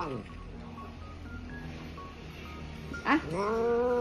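A white long-haired cat, held to be given medicine with a pill syringe, lets out a long drawn-out yowl about three seconds in. The yowl rises and then holds, just after a sharp click. Before it, faint short music notes play.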